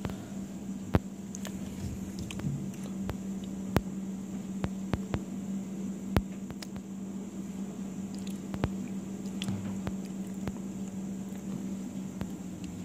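Mack LR Heil split rear-loader garbage truck running, heard through a closed window as a steady hum. Sharp knocks and clatters come at irregular moments over the hum, the loudest about a second in and near four seconds in.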